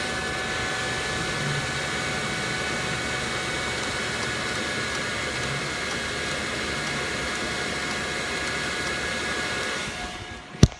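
A steady, loud whirring hiss with faint steady tones, which drops away near the end, followed by one sharp click from the rear of a 2006 Suzuki GSX-R600: the bike clicks but will not start.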